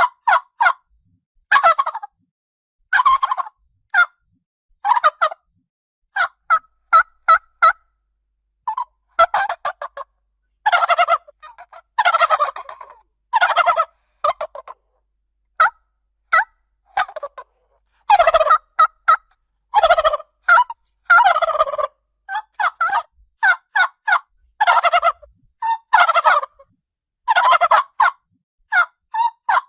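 Domestic turkey gobbling repeatedly: rattling gobbles of about a second each, mixed with short single clucks and yelps, with gaps between the calls.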